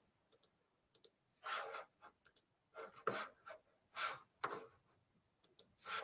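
Faint, scattered computer mouse clicks, a few close together, with a few short soft puffs of noise picked up by a headset microphone.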